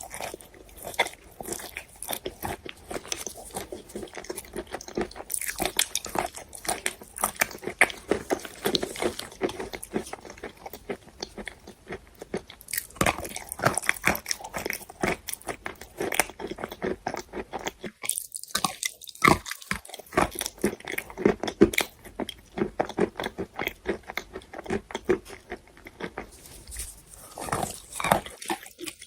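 Close-miked biting and chewing of wet chalk: a dense, continuous run of soft crunches with a brief lull about eighteen seconds in.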